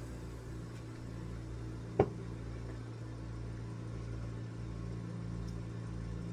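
A steady low electrical hum with a faint background hiss, broken once by a single sharp click about two seconds in.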